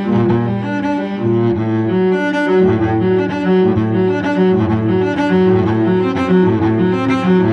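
Solo cello played with the bow, a run of connected notes changing every half second or so, recorded close through a Warm Audio WA-44 ribbon microphone with a Warm Lifter inline preamp.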